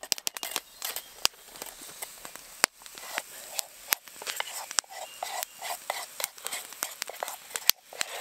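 Small campfire crackling with irregular sharp pops and snaps, under the hiss of pancake batter being poured into an oiled frying pan set over the flames.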